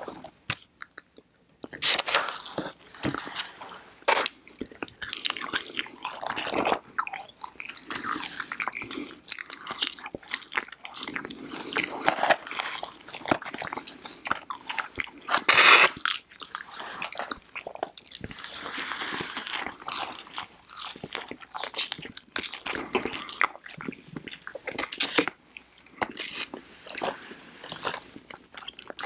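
Close-miked chewing and crunching of breaded fried chicken fingers and crinkle-cut fries, irregular bites and chews starting about a second and a half in, with one especially loud crunch past the middle.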